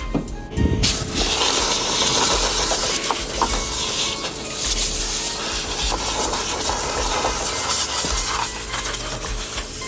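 Steady hiss of rushing air, starting about a second in.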